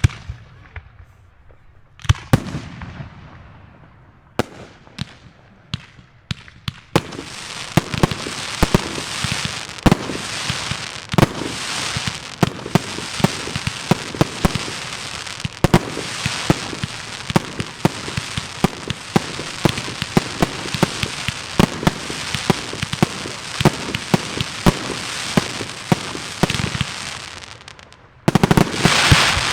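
Fireworks show: a few separate sharp bangs from shells bursting, then about twenty seconds of dense crackling with many pops, and a louder burst near the end.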